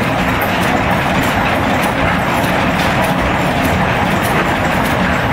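Several antique stationary engines running at once, a loud steady mechanical clatter of rapid irregular knocks and exhaust pops.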